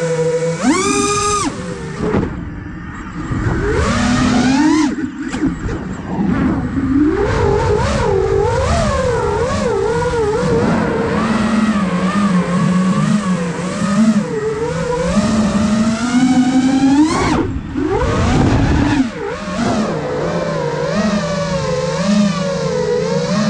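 Five-inch FPV quadcopter's brushless motors and propellers whining, heard from the camera on the drone, the pitch rising and falling constantly with the throttle. A sharp climb in pitch comes about a second in, with brief drops in power soon after and again near the end.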